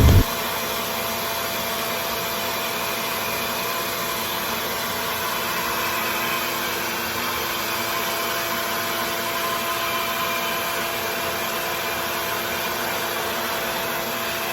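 RevAir reverse-air hair dryer running steadily: a very loud, even rush of air with a faint steady hum.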